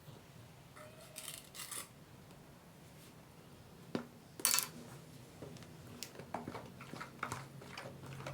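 Kitchen utensils and dishes knocking and clinking while cake batter is prepared: scattered small clicks and scrapes, a sharp knock about four seconds in followed by the loudest clatter, then a run of quick light clicks near the end.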